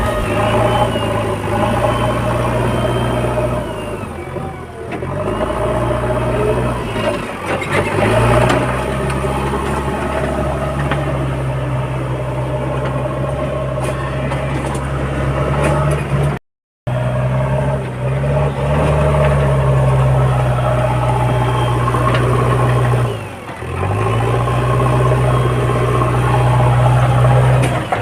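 Diesel engine of a JCB 3DX backhoe loader running steadily under work, its pitch dropping briefly and climbing back up a few times as the load or throttle changes. The sound cuts out for a moment partway through.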